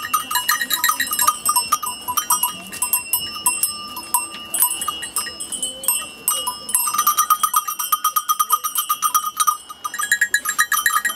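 Bells on a flock of sheep and goats clanking rapidly and irregularly as the animals walk. Several bells of different pitches ring at once.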